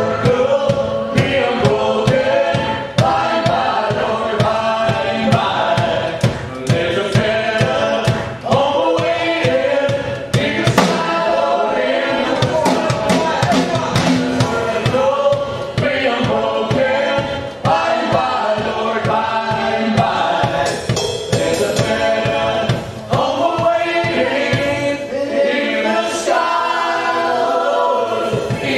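Acoustic skiffle band playing with several voices singing together, over a steady strummed and percussive beat from washboard, drums, double bass and guitars. In the second half the low beat thins out and the massed voices come to the fore.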